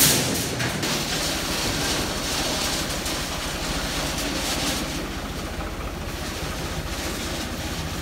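A tractor engine running steadily, with bundles of steel rebar scraping and clattering as they are slid off the back of its trolley.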